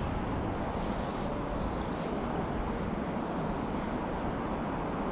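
Steady rushing of a fast-flowing, flooded river.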